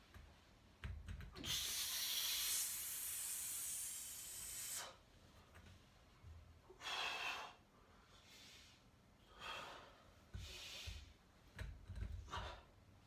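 Hard breathing from a gymnast straining through a skin-the-cat on gymnastics rings: one long forced exhale of about three seconds, then a run of shorter, sharp breaths. A few low thuds sound underneath.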